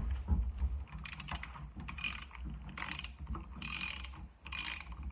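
Ratchet wrench clicking in short runs, about one a second, as it is swung back and forth to unscrew the 30 mm top cap of a motocross front fork.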